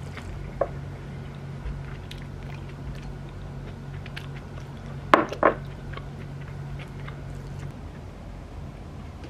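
Chopsticks scraping and mixing food in a paper takeaway bowl while chopped okra is tipped in from a glass bowl, with two sharp clicks just after five seconds in. Small scattered clicks and a steady low hum lie underneath; the hum stops shortly before the end.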